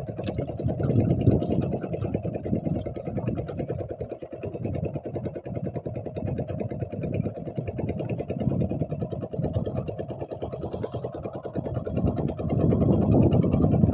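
Small boat engine running steadily with an even, fast firing beat. A brief hiss sounds about ten seconds in.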